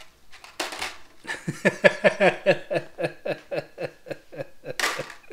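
A man laughing in a long run of short chuckles, about four a second, ending with a sharp in-breath: rueful laughter at a mishap while spilled screws are sorted.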